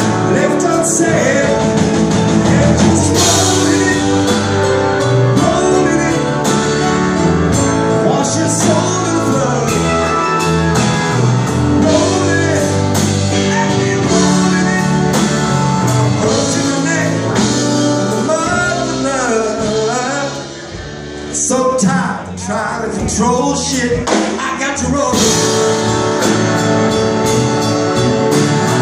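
A live rock band playing: electric guitar, electric bass, drums, piano and keyboards. The music briefly dips in level about twenty seconds in, then comes back up.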